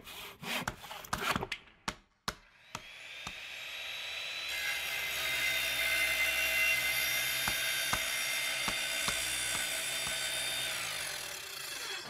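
Tool sound effects: a few short scraping strokes, then an electric drill spinning up about three seconds in, running steadily, and winding down near the end.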